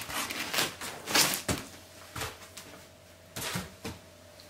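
Foam packing blocks and cardboard being handled as a box is unpacked: a series of short scrapes and knocks, the loudest about a second in.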